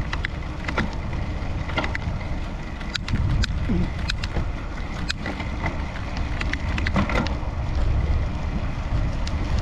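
Bicycle in motion: a steady low rumble of riding, with scattered sharp clicks and rattles from the bike over the ground.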